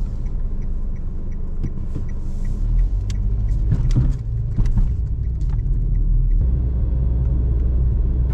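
Daihatsu Mira Cocoa kei car on the move, heard as a steady low rumble of engine and road noise, with a regular light ticking through the first few seconds.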